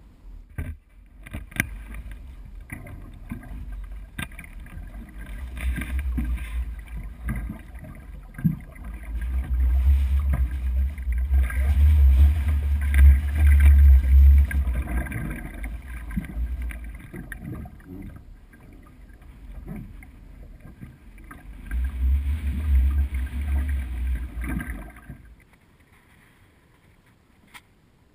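Wind buffeting the microphone in gusts, loudest in the middle and again a few seconds before the end, over paddle strokes and water splashing around a plywood canoe. The sound drops away near the end.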